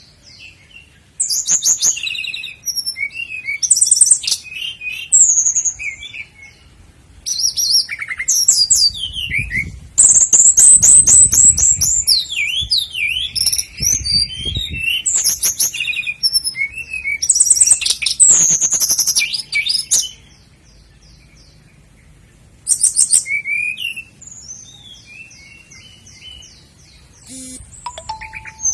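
Common nightingale singing: separate phrases of varied whistles, buzzy notes and fast repeated trills, with short pauses between phrases and one longer pause about two-thirds of the way through.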